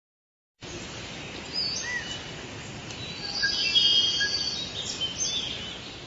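Forest ambience: assorted birds chirping and whistling over a steady background hiss. It starts after half a second of silence and fades out near the end.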